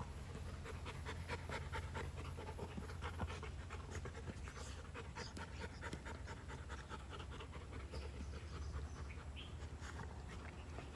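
Rottweilers panting, with quick wet licking and mouth-smacking clicks as one licks the other's muzzle. A steady low hum runs underneath.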